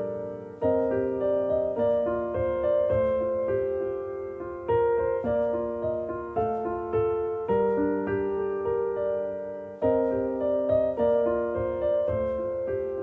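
Background music: a soft solo piano melody with notes that ring and fade, phrases restarting every second or two.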